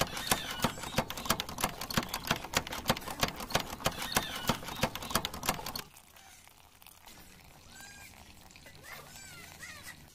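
Rapid, even clicking, about five or six clicks a second, that stops suddenly about six seconds in, leaving a faint background with a few short high chirps.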